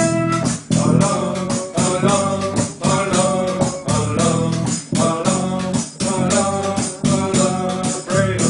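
Band music: an old Moroccan song played with a pitched instrumental melody stepping from note to note over a steady percussion beat.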